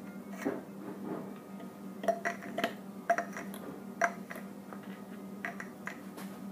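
A handful of sharp clicks and taps from a flashlight being handled, bunched between about two and four seconds in, over a steady low hum.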